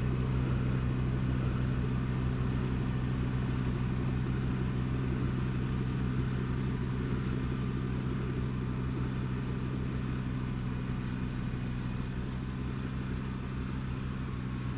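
Kubota BX2230D compact tractor's three-cylinder diesel engine running steadily, easing off slightly in loudness over the last few seconds.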